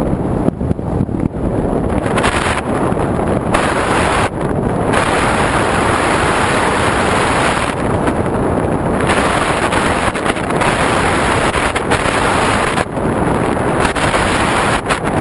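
Loud airflow rushing over the onboard microphone of a radio-controlled model plane in flight, an even roar whose upper hiss drops out and returns every second or few.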